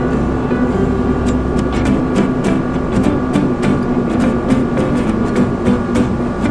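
Music with steady held tones and a regular ticking beat that comes in about a second in.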